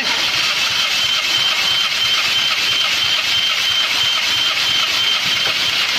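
Hyundai Grand i10's four-cylinder petrol engine being cranked on its starter motor with the spark plugs out and fuel and ignition cut, turning over evenly without firing, with a steady high whine. This is the cranking for a compression test on cylinder 3.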